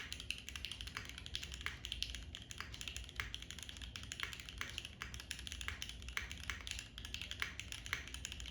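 Continuous typing on a Geonworks Frog Mini mechanical keyboard with Gateron Everfree Curry linear switches lubed with Tribosys 3204, GMK keycaps on an aluminium plate in a tadpole mount, heard through a camera microphone: a steady run of sharp key clacks, several a second.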